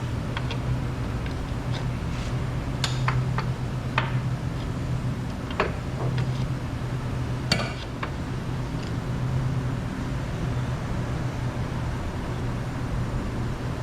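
A handful of light metallic clinks and taps, as of tools and the drain plug being handled, over a steady low hum while engine oil drains into a pan; the sharpest clinks fall about three, four and seven and a half seconds in.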